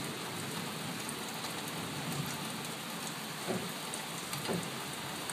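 Heavy rain falling steadily in a thunderstorm, an even hiss, with two brief louder sounds about three and a half and four and a half seconds in.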